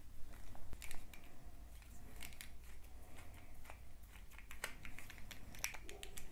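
Phillips screwdriver turning small screws out of the underside of a toy car: faint, irregular clicks and scratches of the tip working in the screw heads and the plastic body being handled.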